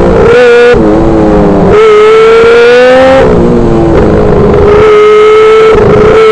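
Micro sprint car engine heard loud from on board, revving high with the throttle lifted and picked up again several times, so the pitch keeps dropping and climbing back.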